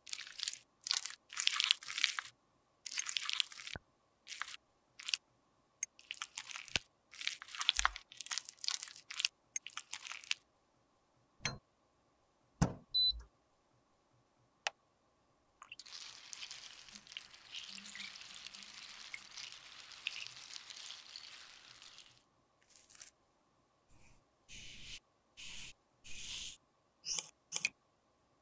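A metal spatula scraping lipstick out of its tube in many short strokes, then a few sharp clicks. In the middle comes a steady hiss lasting about six seconds, and near the end more short scrapes and clicks.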